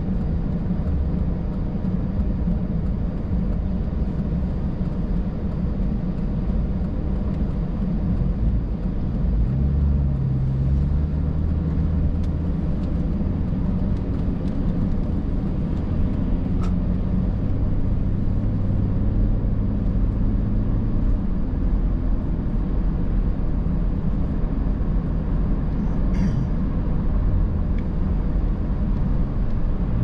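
Car interior noise: a steady low engine and tyre rumble, whose low tone shifts about ten seconds in as the car moves off from a stop and drives on wet pavement.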